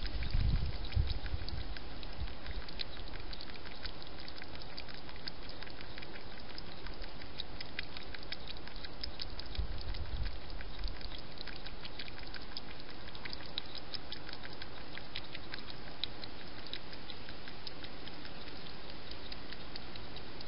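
A wild hedgehog feeding at a bowl: a run of faint, rapid, irregular mouth clicks over a steady hiss, with low bumps near the start and again about ten seconds in.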